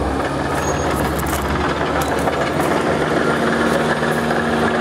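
An engine running steadily, with a steady hum joining about three seconds in.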